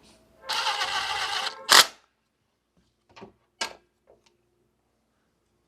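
Parts and tools being handled during work on a car's wiring: a second-long scraping rustle, then one sharp loud clack, followed by a few lighter clicks.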